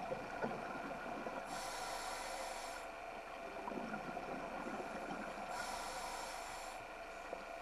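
Scuba diver breathing through a regulator, heard underwater: two hissing inhalations about four seconds apart, with softer bubbling exhalations between them, over a steady hum.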